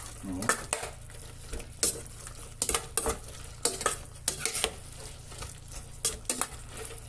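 Cooking utensil stirring a thickened broth of string beans, clinking and scraping against the pan at irregular intervals, over a low steady hum.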